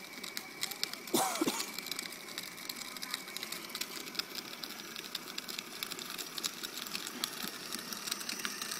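Battery-powered toy ride-on motorcycle running: a faint, steady high whine from its small electric motor, with many small ticks and rattles from its plastic wheels rolling over asphalt. A brief voice sounds about a second in.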